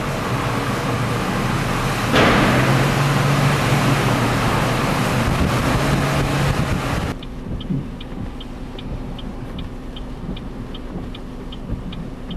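Car engine running with road and cabin noise as the car drives into a parking garage; the noise grows louder about two seconds in. About seven seconds in it cuts suddenly to a quieter steady hum with a faint, regular high ticking, about three ticks a second.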